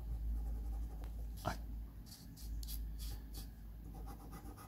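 Felt-tip marker scratching across paper in a run of short strokes, about two to three and a half seconds in, over a steady low hum. A single short squeak sounds about a second and a half in.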